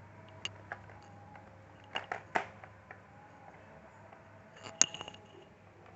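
Scattered light clicks and taps from handling laptop parts and tools during disassembly: a couple near the start, three quick ones about two seconds in, and one sharper click near the end, over a faint steady hum.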